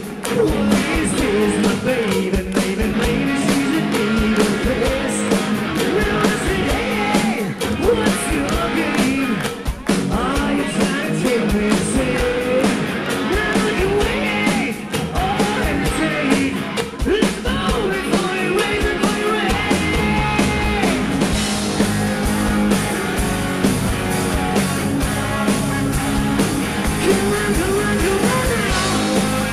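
Live rock band playing through a PA: electric guitars over a steady beat, with a male lead singer.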